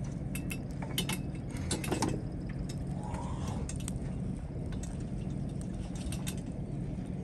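Scattered light clinks and clicks from handled utensils and grilling gear, thickest in the first couple of seconds, over a steady low hum.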